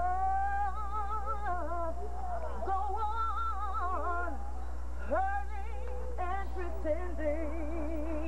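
A girl singing solo, holding long notes with a wide vibrato and sliding up into and down out of them. A steady low hum runs underneath.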